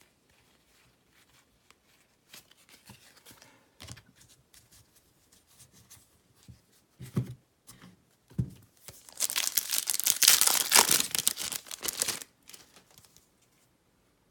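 A baseball card pack wrapper being torn open, a loud crinkling rip lasting about three seconds in the second half. Light rustling and two soft thumps come before it.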